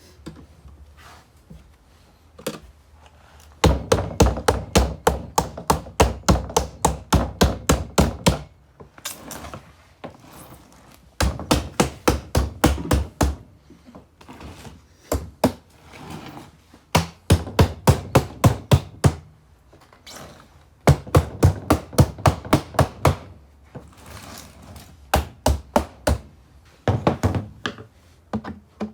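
Runs of sharp, hard knocks, about four a second, each run lasting a few seconds with short pauses between.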